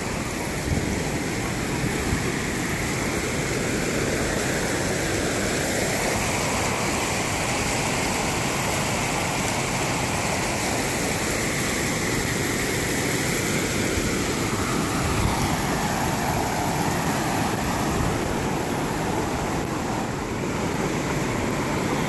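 River water rushing over a rock shelf and through small rapids, a steady, even rush.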